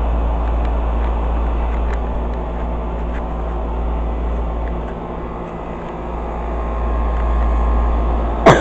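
Carrier 38BRC central air conditioner's outdoor condensing unit running, a steady low hum of compressor and condenser fan. A single sharp knock sounds near the end.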